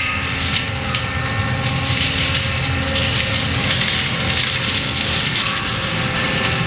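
Forestry mulcher head on an ASV RT-135 compact track loader shredding brush and wood, a steady grinding, crunching noise over the loader's engine running under load.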